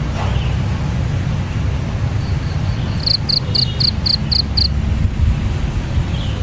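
A songbird gives a quick run of seven high chirps, about four a second, midway through, over a steady low rumble of outdoor ambience.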